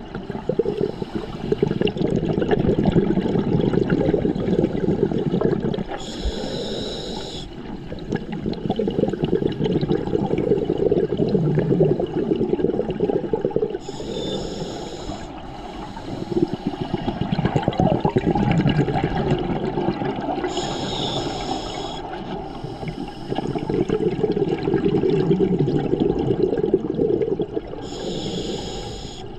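Scuba breathing through a regulator underwater: a short hissing inhale about every seven seconds, each followed by a long rush of exhaled bubbles.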